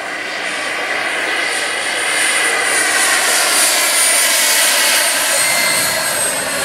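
Turbine-powered RC model helicopter in flight: the high whine of its small gas turbine over rotor noise. It grows louder about two seconds in, and its pitch slides slowly as the model passes.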